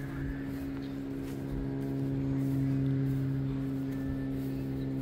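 Steady low machine hum with a deep, even tone, getting slightly louder about two seconds in.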